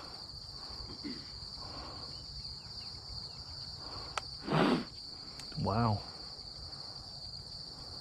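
A steady, high insect chorus, like crickets trilling, from the field edge, with a single sharp click about four seconds in.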